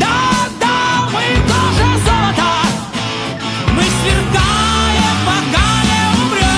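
A heavy metal band playing an instrumental passage. A lead guitar plays a melody with bends and vibrato over bass and drums.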